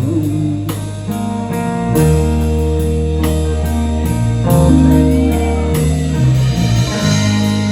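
Live rock band playing an instrumental passage of a slow waltz arrangement: guitar over a deep bass line, with regular drum strokes and no singing.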